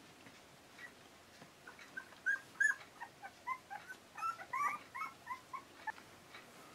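Twelve-day-old Akita puppies squeaking and whimpering. A rapid run of short, high squeaks begins about two seconds in and dies away shortly before the end.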